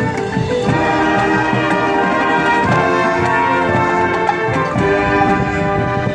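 High school marching band playing: sustained brass chords that change every couple of seconds, over percussion hits.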